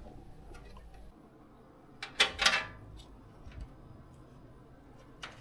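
Small clicks and rattles from hardware being handled during a PC build, loudest in a brief clatter about two seconds in, with a single light click near the end.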